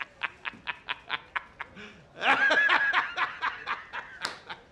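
A man laughing hard: a quick run of short 'ha's, about seven a second, a longer drawn-out laugh in the middle, then more 'ha's that trail off near the end.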